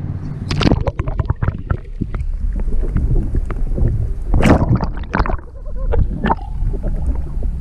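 Muffled underwater sound picked up by a camera in a waterproof housing: a steady low rumble of water with irregular clicks, knocks and gurgles, the loudest knocks about half a second and four and a half seconds in.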